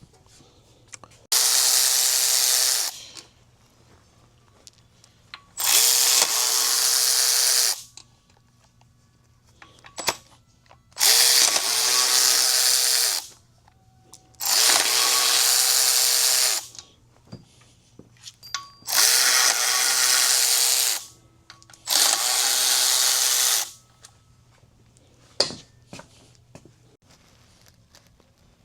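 Handheld power tool, such as a drill or impact driver, run in six loud bursts of about two seconds each, with short pauses and a few small clicks between them, while fasteners are worked off a 2JZ engine being torn down.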